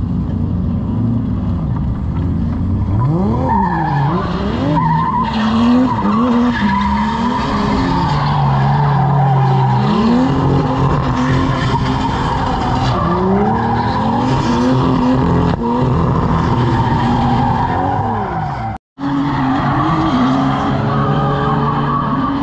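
Drift cars' engines revving up and down again and again as they slide, over continuous tyre skidding and screeching. The sound cuts out for an instant about three-quarters of the way through.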